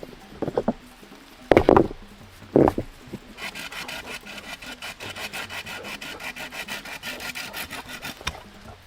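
A few knocks on wood, then about five seconds of a hand saw cutting through wood with a fast, even rasp.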